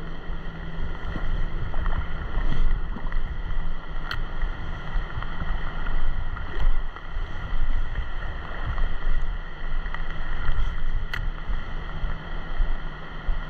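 Wind buffeting the microphone over the rush of river water, a low, rumbling noise that swells and falls unevenly, with two sharp clicks about four and eleven seconds in.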